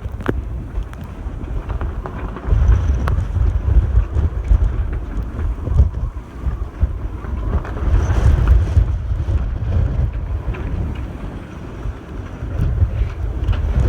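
Strong wind buffeting the microphone in gusts, a heavy rumble that swells and eases every few seconds, with a few sharp clicks.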